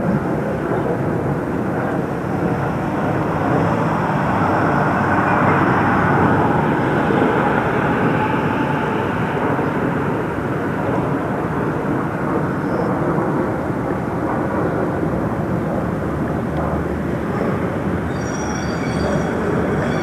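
Steady rumble of passing vehicles, swelling a few seconds in and easing off, with faint high squeals near the end.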